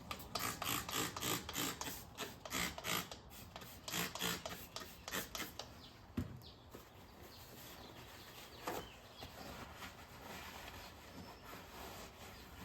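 Windex on a steel truck wheel, wiped with a paper towel: a quick run of short rubbing strokes, about three a second, over the first few seconds, then softer, slower wiping.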